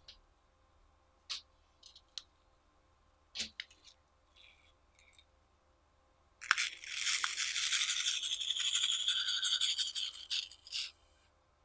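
Slime being handled and mixed: a few soft clicks, then about six and a half seconds in, a dense, scratchy crackling lasting about four seconds.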